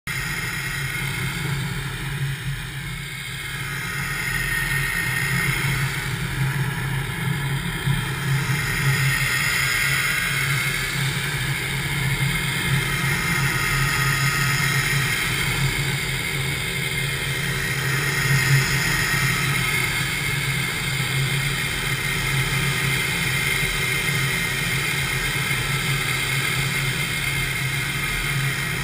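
Two-stroke paramotor engine and propeller running steadily in flight: a constant low drone, with a higher tone that swells and fades every few seconds.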